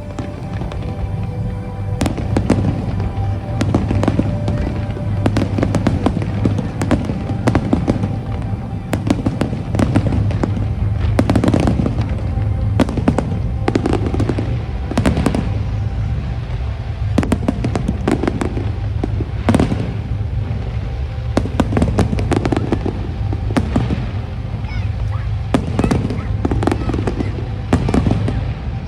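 Fireworks display: a dense, unbroken string of booms and sharp cracks, many reports overlapping, with music playing underneath.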